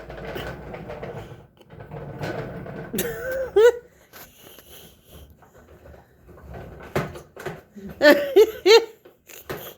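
A person laughing: short bursts of rapid laughter about three seconds in and again around eight seconds in, with rustling and handling noise at the start.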